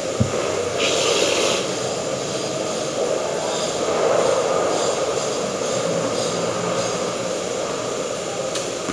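Steady machine-like background noise, with a brief hiss about a second in.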